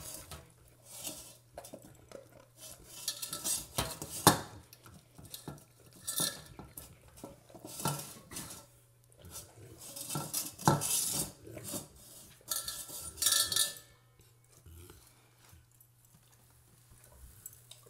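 A dog licking and nosing the last of its food from a stainless-steel bowl, the metal bowl rattling and scraping on the floor in irregular bursts; the bowl noise stops about fourteen seconds in as the bowl is left empty.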